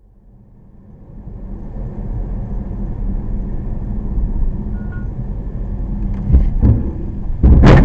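Car engine and road noise inside a moving car, a steady low rumble and hum that builds as the car gets going. About six and a half seconds in come two sharp thumps, then a loud bang just before the end.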